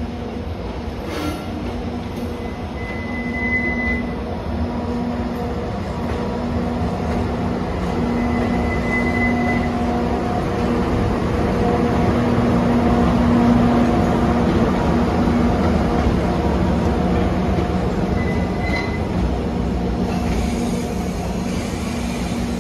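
EF64 electric locomotive hauling a train of old-type passenger coaches past, running with a steady hum that is loudest as the locomotive goes by about halfway through. The wheels squeal briefly three times.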